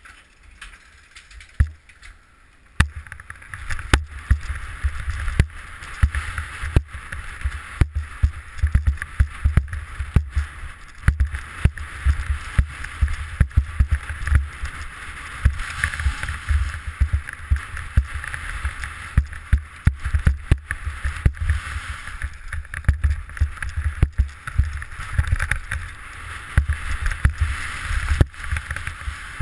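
Downhill mountain bike riding over a rocky trail: wind buffeting the helmet-mounted camera's microphone as a steady rumble, with constant rattles and knocks from the bike clattering over stones. Quieter for the first few seconds, picking up about three seconds in as the bike gets moving.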